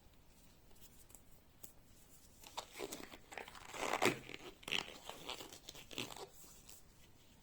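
Gloves being pulled onto the hands: irregular rustling and crinkling with a few sharp crackles, starting about two and a half seconds in and stopping around six seconds in.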